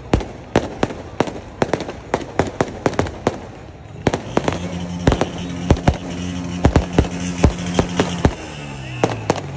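Fireworks bursting overhead: a rapid, irregular string of sharp cracks and bangs, several a second. From about halfway, a steady low tone runs underneath and slides down in pitch near the end.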